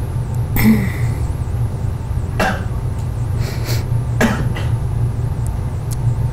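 Steady low room hum with several short, sharp sounds scattered through it, the strongest about half a second in. A faint warbling high whine runs underneath.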